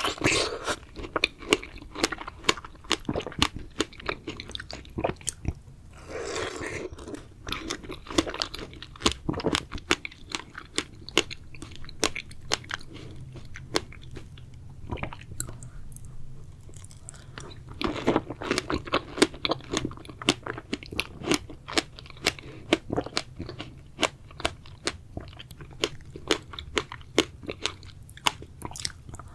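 Close-miked chewing and biting of strawberries: a steady run of wet, crunchy mouth clicks, busiest at the start, about six seconds in, and again from about eighteen seconds in.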